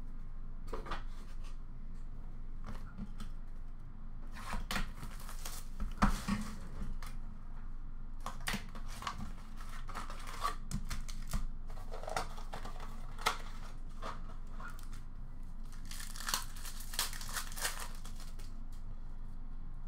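Hockey card box and foil card packs being torn open by hand: ripping and crinkling of the wrappers and cardboard, in several irregular bursts with small clicks and rustles between.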